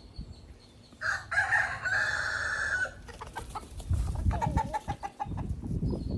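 Rooster crowing once, a call of about two seconds starting about a second in, followed by a shorter, lower call.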